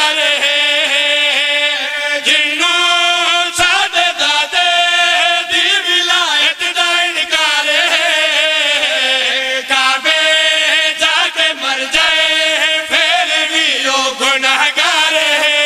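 Several men chanting a devotional verse together into a microphone, the voices loud and continuous, with long held notes that waver.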